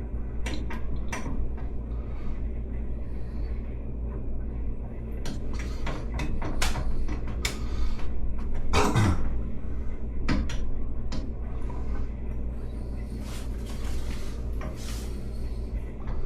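Metal parts of a 2-inch backflow preventer clicking and clinking as it is put back together by hand, with a louder knock about nine seconds in. A steady low hum runs underneath.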